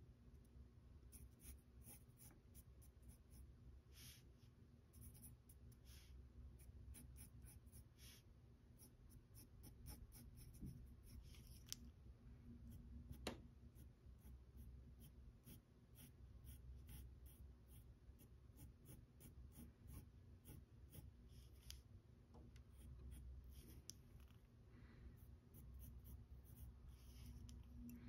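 Pencil sketching on paper: faint, irregular short scratching strokes over a low steady hum.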